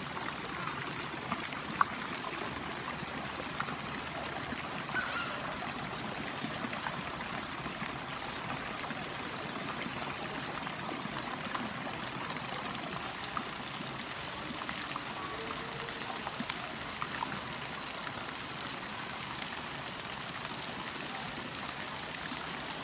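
Steady splashing and trickling of a fountain jet falling into a swimming pool, with one sharp tap about two seconds in.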